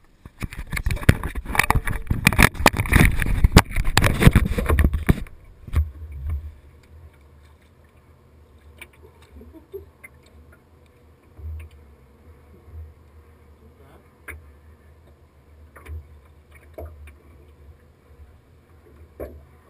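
For about five seconds a mounted action camera is handled and moved, giving loud rustling and knocking on its microphone. Then water slaps the small aluminium boat's hull in irregular low thumps, with scattered light clicks.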